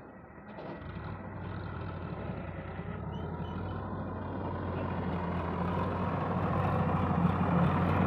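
Diesel tractor engine running steadily as the tractor tows a soil-loaded trailer, growing louder as it drives closer.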